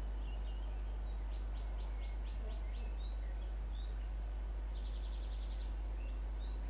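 A songbird singing outdoors: a run of quick repeated notes, a few short chirps, and a fast trill about five seconds in, all high-pitched. Under it runs a steady low hum.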